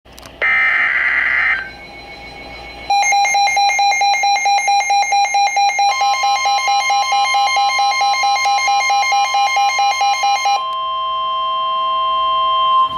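Emergency Alert System alert from a NOAA Weather Radio: a short screech of digital header data, then a rapid pulsing electronic alarm beep, joined about six seconds in by the steady single-pitch warning alarm tone, which carries on after the beeping stops near the end.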